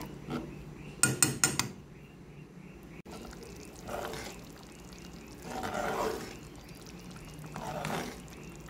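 Metal spoon knocking and clinking against a pan in a quick cluster about a second in, then three slow wet swishes of thick simmering sambal being stirred.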